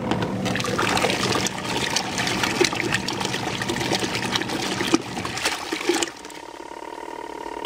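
Water sloshing and churning in the wash tub of an Auauna portable twin-tub washing machine, over a steady motor hum. The churning eases about six seconds in.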